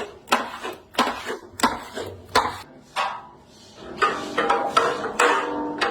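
Repeated sharp knocks of cooking work, about one or two a second, then from about four seconds a denser clatter with some ringing tones.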